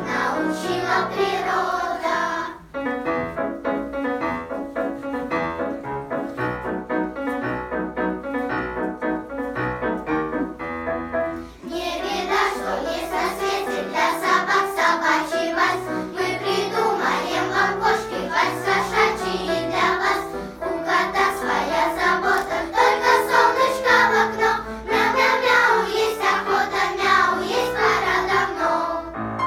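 Children's choir singing a song with instrumental accompaniment. The passage is softer at first and becomes fuller and louder from about twelve seconds in.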